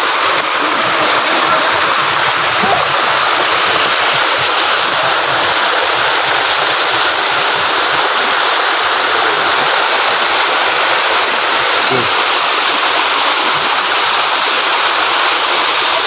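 Steady rush of river water pouring over rocks into a pool at a waterfall, churning white.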